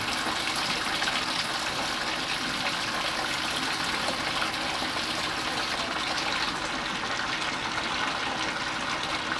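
Water gushing steadily as it is run through an air-conditioning unit to flush it out.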